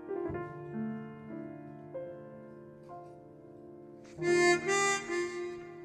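Grand piano playing soft, sparse chords that ring and fade, then about four seconds in a chromatic harmonica comes in loudly over it with a phrase of the melody.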